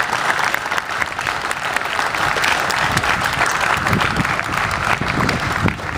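Audience applauding: many hands clapping steadily, easing slightly near the end.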